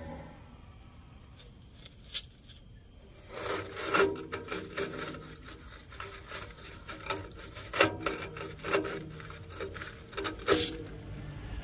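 A transformer's silica gel breather canister being twisted by hand on its mount, the plastic scraping and rubbing against the fitting in irregular strokes. It starts about three seconds in, with a few sharper scrapes.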